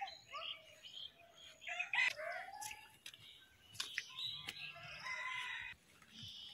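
A rooster crowing, its long held call about four seconds in, among shorter chicken calls and small birds chirping, with a few sharp knocks.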